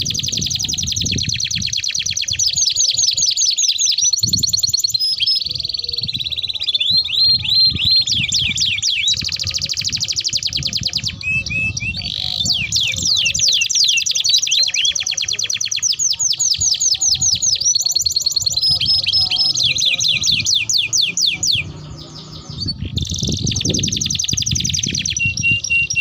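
Domestic canary singing a long, continuous song of rapid rolling trills, one trill type after another, with a brief break about 22 seconds in.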